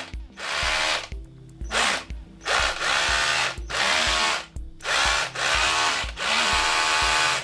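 Parkside PBHA 12 A1 12 V cordless hammer drill set to hammer-drill mode and running with no load. The trigger is squeezed and released in about six bursts; each time the motor's whine rises as it spins up and falls as it runs down.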